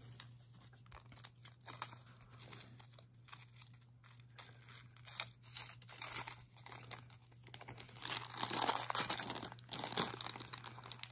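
Small clear plastic zip-top jewelry bags crinkling and crackling as they are handled and opened, growing louder and busier in the last few seconds.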